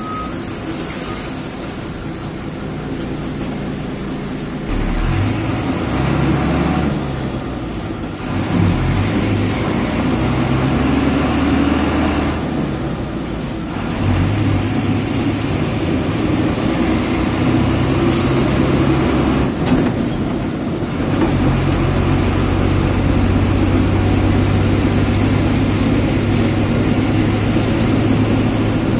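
Bus diesel engine heard from the driver's cab while driving, its note rising and falling several times with brief drops in level, then running steadily for the last third. A single sharp click sounds a little past the middle.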